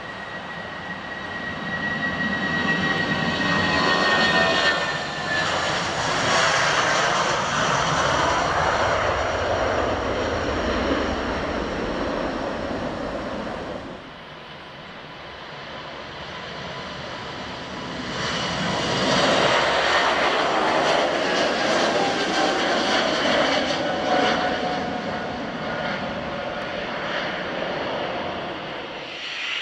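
Jet airliner engines at takeoff power passing by, with a falling whine early on. The sound drops off abruptly about fourteen seconds in, then builds and passes again.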